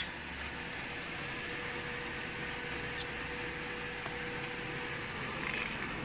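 Steady whirring hum of a powered CRI100A common rail injector test bench, with a faint steady whine that fades out about five seconds in. A few light clicks come through near the start, about three seconds in and again a little later.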